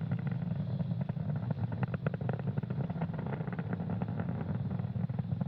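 Falcon 9 first stage's nine Merlin 1D engines heard during ascent: a steady, deep rumble with rapid sharp crackling.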